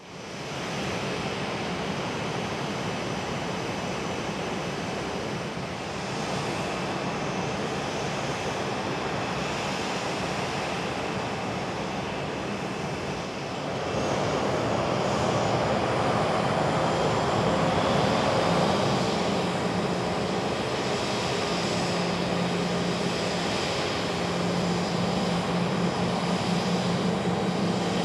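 Boeing 737-700's CFM56-7B jet engines running at low taxi power as the airliner taxis: a steady rush of engine noise with a faint high whine. It gets louder about halfway through.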